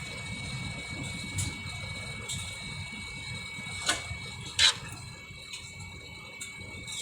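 Steady low hum of an airliner cabin readying for takeoff, with a faint steady high whine. A few short clicks or rustles sound close by, the loudest about four and a half seconds in.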